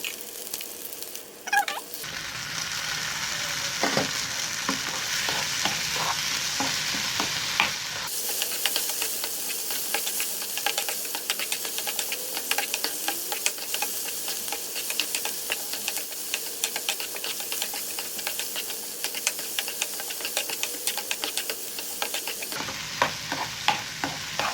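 Onion, garlic, green chillies and whole spices sizzling in hot oil in a pan as they are sautéed and stirred, with a steady crackle and many small scraping clicks.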